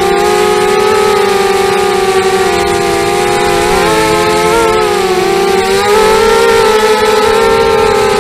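A 250-size racing quadcopter's brushless motors and propellers whine, heard through its onboard camera. The pitch wavers with the throttle, dipping about four seconds in and shifting up again a couple of seconds later.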